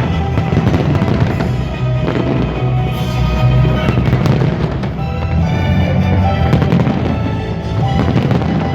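Fireworks display: shells bursting with repeated bangs and crackles, over loud music with a strong bass.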